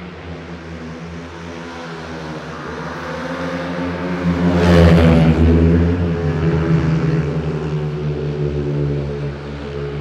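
Speedway motorcycles' single-cylinder engines running at high revs. The sound swells to a peak about five seconds in, then eases off.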